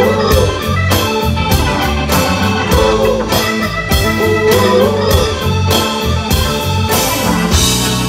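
Live rock band playing an instrumental passage: organ to the fore over electric bass and a steady drum-kit beat.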